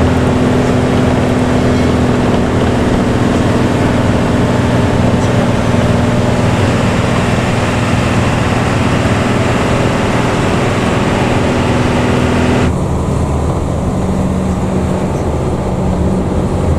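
Luragung bus's diesel engine and growling ('ngorok') aftermarket exhaust running steadily and loudly. About three-quarters of the way through the sound abruptly turns duller and lower.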